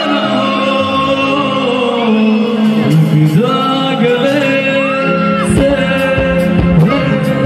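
Live band music with a male voice singing through the PA, holding long notes with sliding ornaments. Drum strokes come in about three seconds in.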